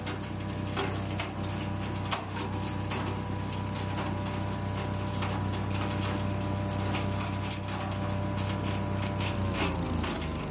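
Small petrol engine of a garden wood chipper running steadily, with sharp cracks and clatters as branch cuttings are fed in and chipped. Near the end the engine note drops.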